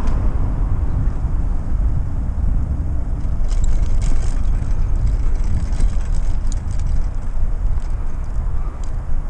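Wind rumbling over the microphone of a camera on a moving rider, with road noise underneath and a few faint ticks about halfway through.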